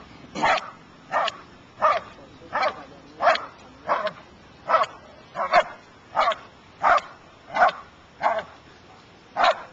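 A Schutzhund protection dog barking over and over in a steady rhythm, about three barks every two seconds.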